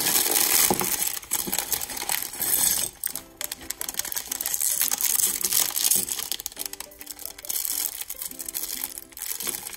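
Thin plastic LEGO parts bag crinkling as it is torn open and shaken, with small plastic bricks tumbling out onto the table. Soft background music comes in about three seconds in.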